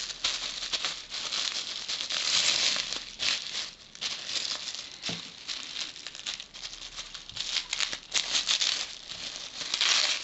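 Clear plastic wrapping crinkling and rustling as hands unwrap and handle a packet of pipe tobacco, with irregular crackles throughout.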